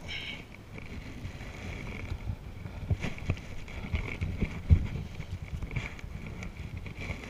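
Choppy shallow water sloshing around a wading angler, with wind on the microphone and a few low thumps, the loudest about four and a half seconds in.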